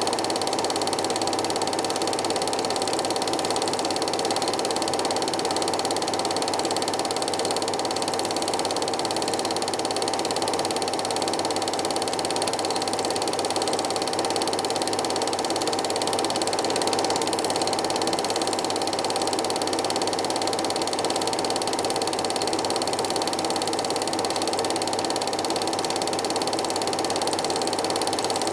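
Home-movie film projector running: a steady mechanical whirr and clatter of the film transport, unchanging throughout.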